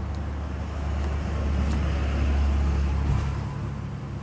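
Low engine rumble of a motor vehicle passing close by, swelling to its loudest a couple of seconds in and fading away, with a few faint taps of a knife on a wooden chopping board.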